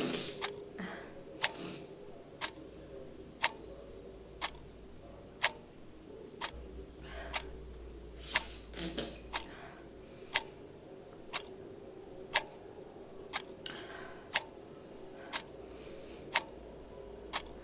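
A clock ticking steadily, about once a second, with a few soft hiss-like noises lasting about a second each in between.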